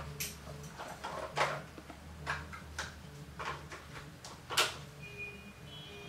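Scattered light clicks and taps of small tools and screws being handled, about seven in a few seconds, over a low steady hum. Faint music comes in near the end.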